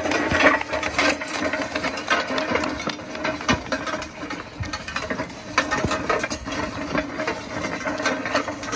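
Metal drag sled scraping and rattling over dirt and gravel as it is pulled along, a continuous rough scrape full of small knocks.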